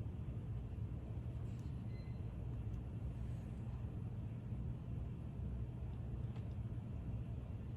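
Steady low background hum of the room, with a few faint clicks of small objects being handled.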